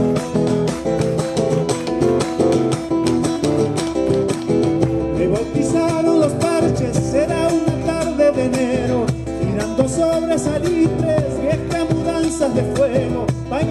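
Live Argentine folk music, a gato: strummed guitars keep a brisk rhythm, and a man's singing voice comes in about five or six seconds in.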